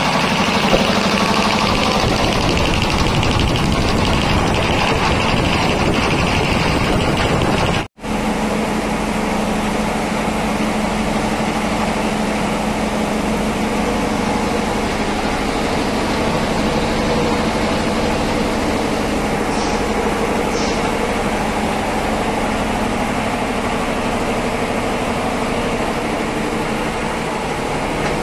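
Reciprocating piston air compressors running steadily, with the electric motor and belt-driven pump together making a loud, continuous mechanical hum. The sound drops out for an instant about eight seconds in, then picks up again as a steadier hum.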